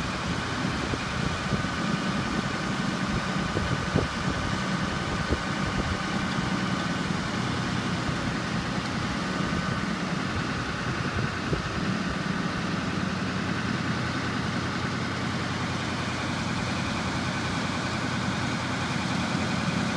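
Ward LaFrance M1A1 wrecker's Continental six-cylinder engine running steadily while it powers the winch on a heavy straight-line pull of a 55-ton tank. A faint steady high whine sits over it through the first half.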